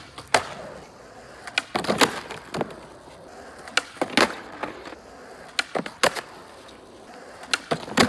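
Skateboard wheels rolling on asphalt, broken by repeated sharp wooden clacks of the tail popping and the board slapping down on landing over several ollie attempts.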